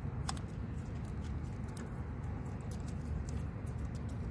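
Black electrical tape being wound around a twisted speaker-wire splice: faint, scattered crackling ticks as the tape peels off and is pressed on, over a steady low background rumble.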